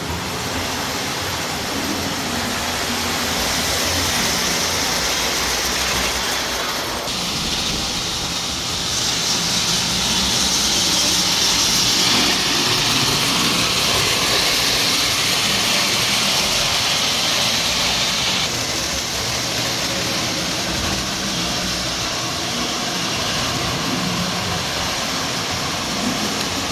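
O gauge model locomotive running on the layout track: a steady motor and wheel-on-rail hum with a hiss that swells through the middle and eases off after about 18 seconds. It is running smoothly, purring like a kitten, with its wheels and track freshly cleaned.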